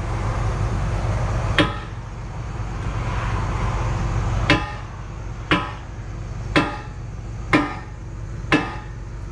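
Six ringing hammer blows on steel at the excavator's stick: one, then after a pause five more about a second apart. Under them the excavator's engine idles steadily.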